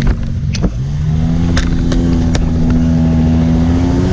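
ATV engine running at high, steady revs after a brief drop and pick-up in pitch under a second in, with a few sharp knocks over it.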